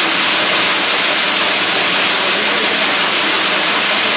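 Peanut peeling machine running: a loud, steady rushing rattle of peanut kernels tumbling through it, with a faint low hum under it.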